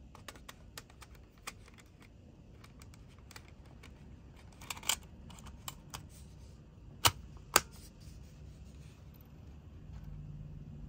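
Small plastic clicks and rattles of a MiniDisc cartridge being handled and loaded into a Sony MZ-R30 MiniDisc recorder, with two sharp clicks about half a second apart some seven seconds in as the player's lid is snapped shut.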